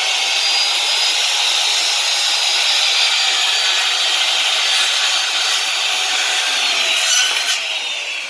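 Electric saw cutting plywood: a steady, loud run with a high whine. Near the end the whine starts to fall in pitch as the saw winds down.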